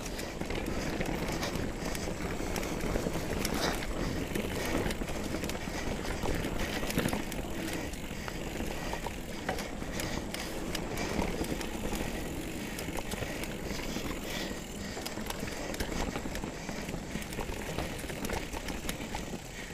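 A 2017 Trek Remedy 7 mountain bike rolling along a dirt trail: steady tyre and riding noise with frequent small clicks and rattles.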